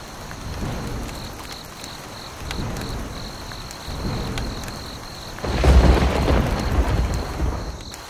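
Thunderstorm: steady rain hiss with low rolls of thunder, the loudest a deep rumble starting about five and a half seconds in and dying away near the end.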